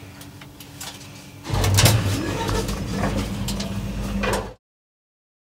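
Steady low hum of an elevator car, then about a second and a half in a much louder rumble with clicks and clatter as the elevator doors slide open. It cuts off suddenly near the end.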